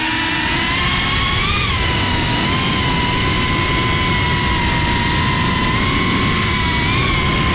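Onboard sound of a small remote-controlled aircraft's motor and propeller: a steady whine that rises slightly in pitch twice, over wind rushing on the microphone.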